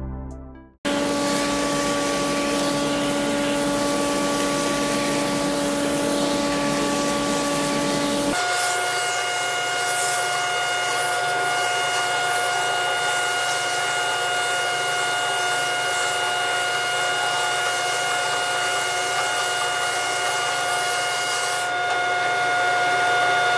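Electric power tool running steadily while cutting the curved edge of an oak-and-epoxy resin panel: a constant motor whine over cutting hiss. The whine jumps to a higher pitch about eight seconds in.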